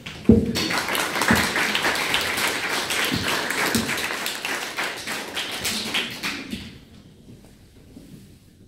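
Audience clapping: a dense patter of many hands, opening with a loud knock and with a few low knocks mixed in, fading out about seven seconds in.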